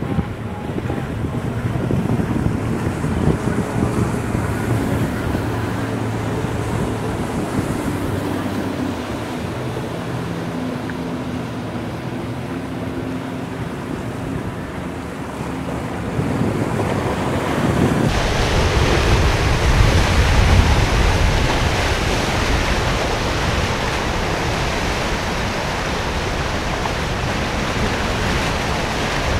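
Small outboard motor on an aluminium skiff running steadily, a low hum mixed with surf and wind on the microphone. About eighteen seconds in, the sound switches to a louder, fuller rush of waves, wake and wind, with the outboards of a large center-console boat running underneath.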